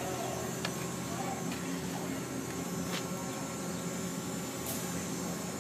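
Steady engine hum with a few faint clicks.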